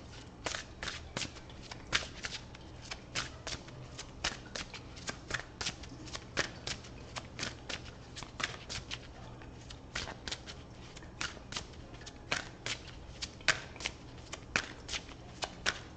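A tarot deck being shuffled by hand: a long run of short crisp card snaps, irregular at about two or three a second.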